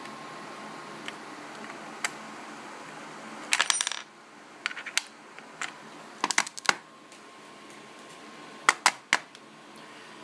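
Plastic shell and small parts of an Xbox 360 controller clicking and clattering as it is taken apart by hand. There is a short burst of clatter about three and a half seconds in, then scattered sharp clicks in small groups.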